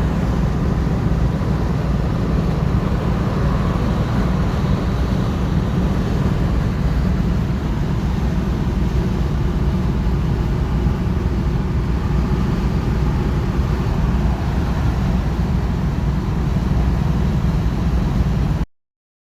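1972 Chevrolet Nova driving along: steady engine and road noise, heaviest in the low end, that cuts off abruptly near the end.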